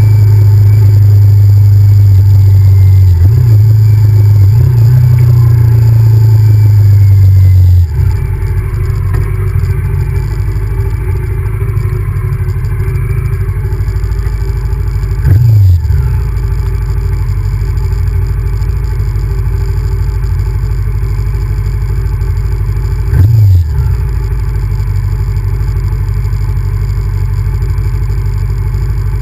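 Honda VTR1000F's V-twin engine running on the move: a loud, steady drone for the first eight seconds, then it drops to a quieter run as the throttle eases. Two brief revs follow, about halfway through and again near the three-quarter mark.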